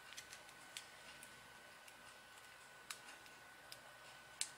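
Near silence with a few faint, scattered ticks of a small screwdriver tightening the screw terminals on a DC barrel-jack adapter.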